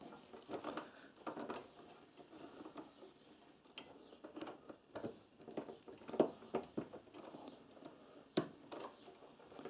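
Irregular light clicks and rustles of small parts being handled: a replacement on/off switch and its wiring being fitted into a MIG welder's front panel. The sharpest clicks come about six seconds in and again a little past eight seconds.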